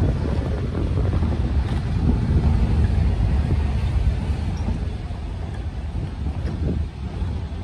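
Wind buffeting the microphone: a steady, heavy low rumble with a noisy hiss above it, easing slightly near the end.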